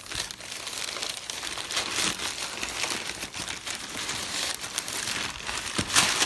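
Packaging being handled: a steady crinkling and rustling of paper or plastic wrap, with a louder crunch just before the end.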